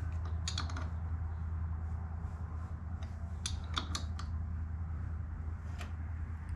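Short metallic clicks of a small wrench on the crankshaft bolt of a Honda CA160 engine as it is turned over slowly by hand: a cluster about half a second in, another around three and a half to four seconds, and a single click near the end. A steady low hum runs underneath throughout.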